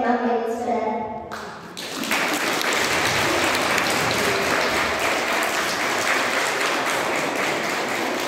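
Audience applauding, breaking out about two seconds in after a child's voice stops, and keeping up a steady clapping.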